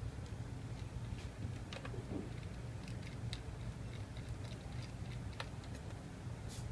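Faint, scattered small clicks and ticks of a screwdriver working the tiny bottom-case screws of a unibody MacBook Pro, heard over a steady low hum.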